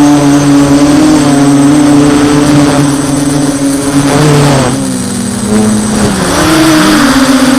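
DJI F550 hexacopter's six electric motors and propellers buzzing steadily, then dropping in pitch and loudness about five seconds in as the motors slow, and rising back up near the end.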